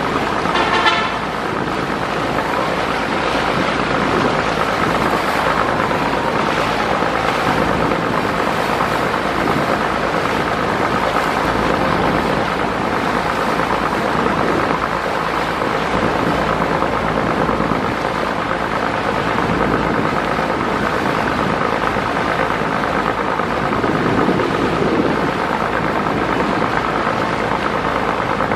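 Steady drone of a passenger river launch's engines under way, with rushing water and wind, and a short horn blast about a second in.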